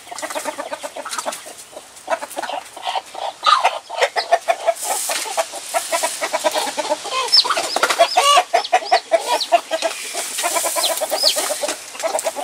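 Backyard hens clucking rapidly and continuously, with a newly hatched chick's high, short peeps among them several times in the second half.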